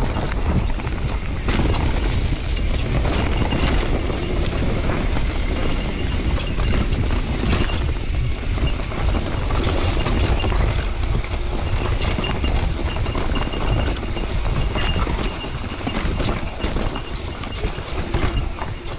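Mountain bike ridden downhill over a rough dirt trail: continuous rattling and clattering of the bike with tyre noise, over a low rumble of wind on the helmet microphone.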